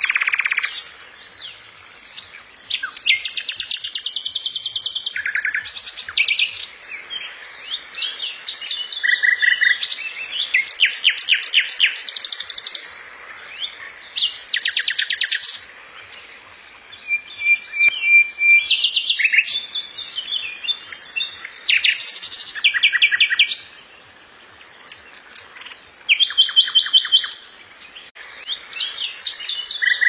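Common nightingale singing: a string of varied phrases, many built from rapid runs of repeated notes, with one short held whistle, separated by brief pauses and a longer pause about three-quarters of the way through.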